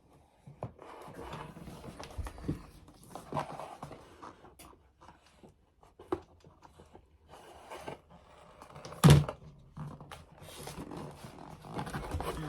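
Handling noises of foam board pieces being pressed together and glued with a hot glue gun: scattered rustles and light knocks, with one sharp knock about nine seconds in.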